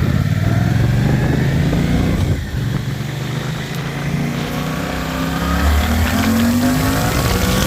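Suzuki GSX-8S 776 cc parallel-twin engine through its stock exhaust, running loud; the revs drop about two seconds in, then climb steadily as it accelerates through the second half.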